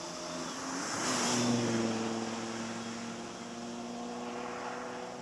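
A boat's engine running. About a second in its note shifts and a rush of noise swells, peaking about a second and a half in, before the engine settles to a steady note.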